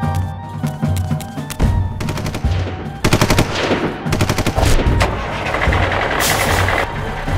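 Rapid bursts of machine-gun fire, a sound effect for a war scene, starting about two seconds in and growing denser after three seconds, over background music.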